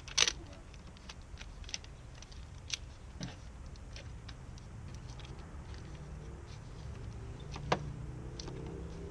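Small clicks and knocks of a plastic drain pipe and its fittings being handled and pushed into place, with a sharp click just after the start and another near the end, over a steady low hum.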